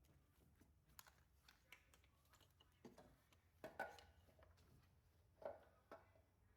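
Near silence: room tone, with a few faint clicks a little past halfway and once more near the end.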